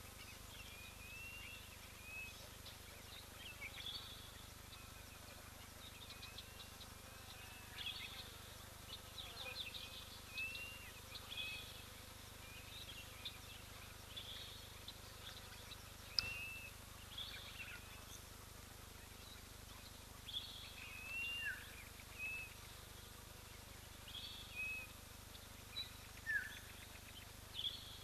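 Wild birds calling: short, arched chirps and brief twittering bursts repeated every second or two over a faint steady hiss, with one sharp click about halfway through.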